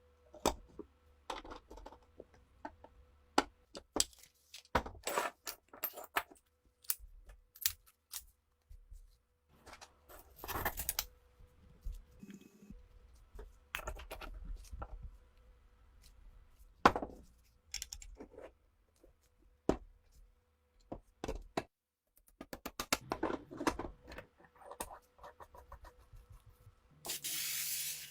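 Metal parts of an MP40 submachine gun being handled on a workbench: irregular sharp clicks, knocks and short scrapes of metal on metal, with a hiss of about a second near the end.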